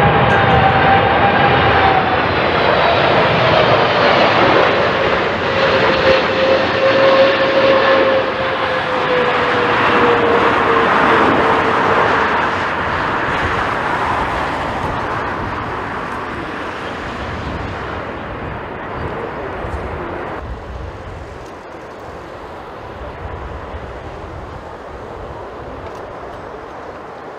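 Jet airliner's engines passing close by on a landing approach: a loud rushing roar with a whine that slides down in pitch, then fades away over the second half.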